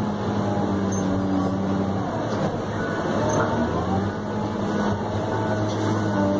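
New Holland RG140B motor grader's diesel engine running steadily, heard from inside the cab while the grader works the dirt road. Its note blurs for a moment about halfway through.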